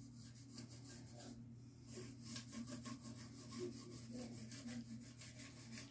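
A small hand tool rubbed in quick back-and-forth strokes along the edge of a laminated wooden bass neck blank, the strokes coming thickest from about two seconds in.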